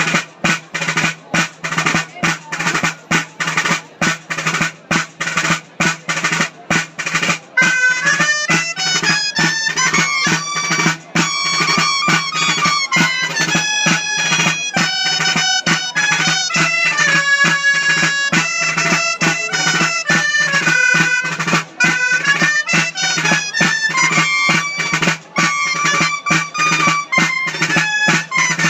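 Dolçaina (Valencian shawm) and tabal drum playing a ball de plaça dance tune. A fast drum rhythm plays alone at first, and about seven and a half seconds in the shawm melody comes in over it.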